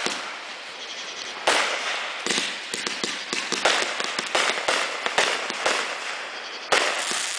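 Aerial fireworks bursting overhead in a quick run of sharp bangs, about a dozen in all, each fading out briefly before the next.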